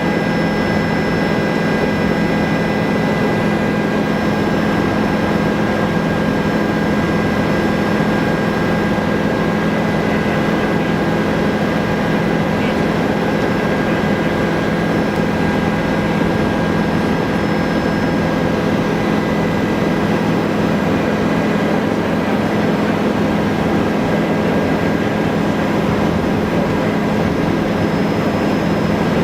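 Helicopter in flight, heard from inside the cabin: a steady, loud drone of engine and rotor with a low hum and fixed high whine tones from the drivetrain, unchanging throughout.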